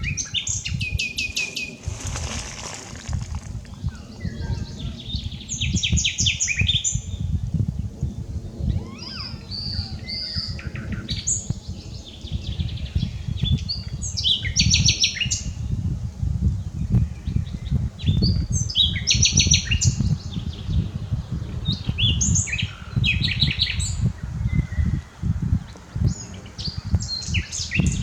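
Common nightingale singing: varied phrases of rapid repeated high notes and trills, each lasting a second or two and separated by short pauses. A steady low rumble runs underneath.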